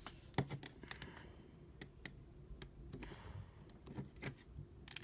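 Irregular light clicks and taps of fingers handling a small 3D-printed plastic cube piece, peeling stickers off their backing sheet and pressing them on.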